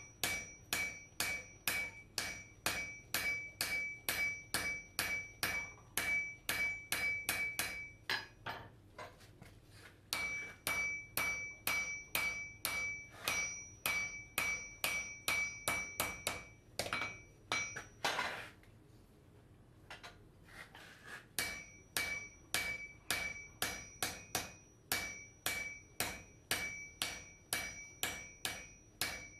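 Blacksmith's hammer striking an anvil in a steady rhythm, about three blows a second, many of them with a high metallic ring. The hammering stops for a couple of seconds twice, about 8 seconds and 18 seconds in.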